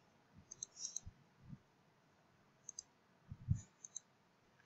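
Faint computer mouse clicks in small groups: a few from about half a second to a second in, a pair near the middle, and several more with a soft low thump a little after three seconds.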